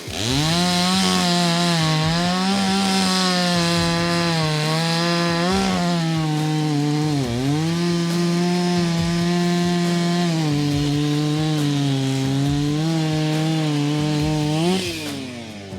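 Two-stroke chainsaw at high revs cutting wood. It revs up at the start, sags briefly twice and settles a little lower partway through as the cut loads it, then comes off the throttle near the end.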